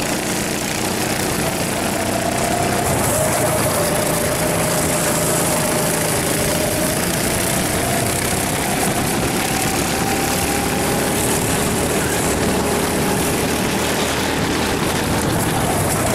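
Rental racing kart's engine running hard, heard from on board over wind hiss on the microphone; its pitch dips about three seconds in, then climbs slowly as the kart gathers speed along the straight.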